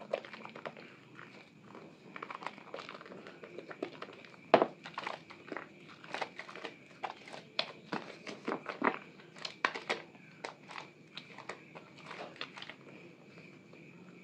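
Hands squeezing and kneading a soaked, mushy bar of Asepso soap in thick lather, giving a run of irregular wet squelches and crackles, with one louder squish about four and a half seconds in.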